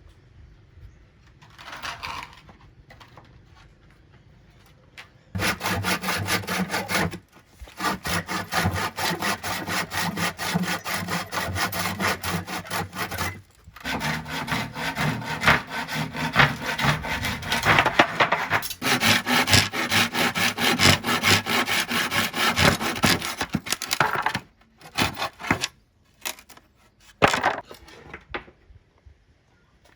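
Hand saw cutting through wood: quick back-and-forth strokes in several runs with short pauses between them, ending in a few single strokes.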